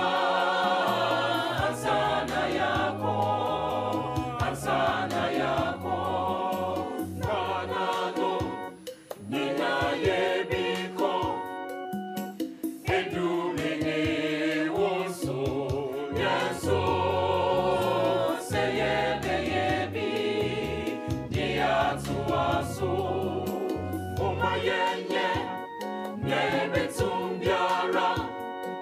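Background music: voices singing together over a steady bass line and percussion.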